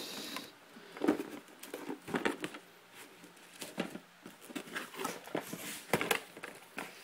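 Cardboard packaging being handled and opened: irregular rustles, scrapes and light knocks of box flaps and paper inserts.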